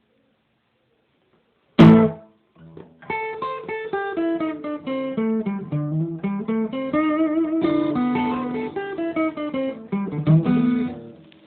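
Acoustic guitar: one sharp chord about two seconds in, then a quick run of picked single notes climbing and falling in pitch, stopping just before the end.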